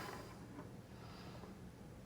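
Quiet room tone: a faint, steady low hum with no distinct handling noises.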